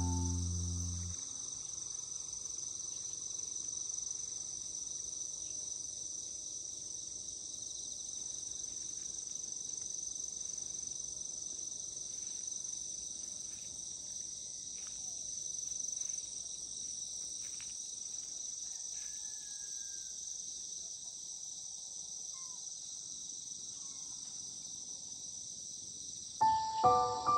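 Steady chorus of crickets, a continuous high-pitched trill that never lets up, with a few faint short calls about midway. Background music fades out at the start and comes back in just before the end.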